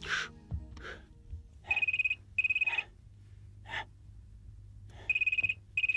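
Home telephone ringing with an electronic trilling ring: two double rings, the second pair about three seconds after the first.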